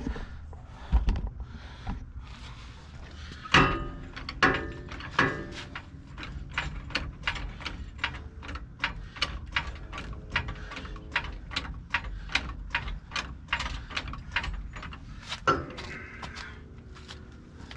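Hand tools working on metal: a few ringing metal clanks, then a steady run of sharp clicks about three a second for several seconds, and one more clank near the end.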